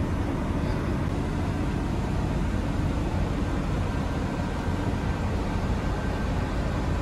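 Steady low rumble and hiss inside a coach bus cabin, with a faint steady whine: the bus's running engine and air conditioning.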